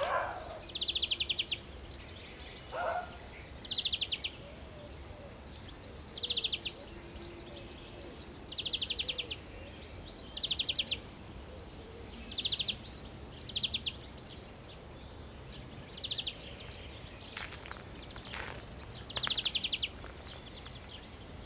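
A bird giving short, fast rattling calls, each about half a second long, repeated every second or two over faint outdoor ambience.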